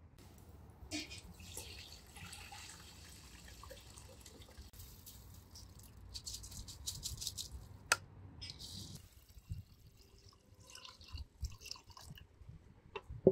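Water splashing and dripping in uneven spells, with a sharp click about eight seconds in and two more near the end.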